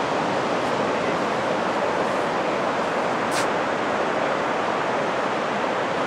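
Steady, even rush of surf on an open sandy beach.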